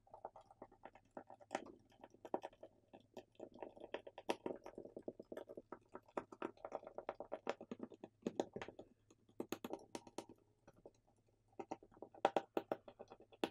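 Small screwdriver turning out tiny Phillips screws from a smartphone's plastic midframe: faint, rapid, irregular clicking and scraping of the bit in the screw heads, pausing for about two seconds around nine seconds in, then starting again.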